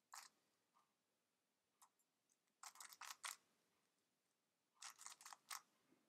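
Faint clicks of a stickerless 3x3 speed cube's layers being turned by hand: a single click at the start, another a little under two seconds in, then two quick runs of about five turns each, one around three seconds in and one near the end.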